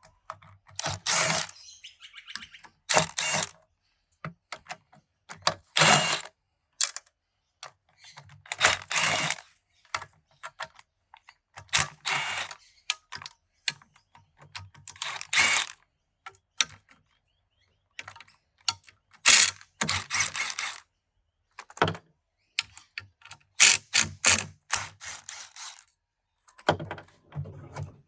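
Hand socket ratchet clicking in short bursts every two to three seconds as it backs out the 10 mm bolts of an automatic transmission's oil pan.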